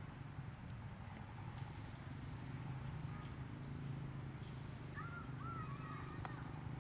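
Quiet outdoor ambience: a low steady hum, with a few brief faint animal chirps, most of them about five seconds in.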